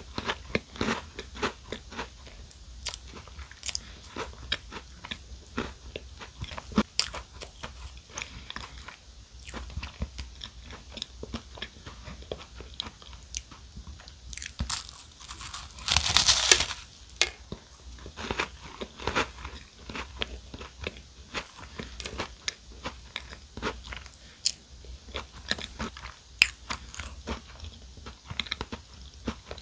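Close-miked biting and chewing of a chocolate cupcake topped with a Crown Sando sandwich biscuit: crisp crunches and crackles throughout, with one louder, longer burst of crunching about halfway through.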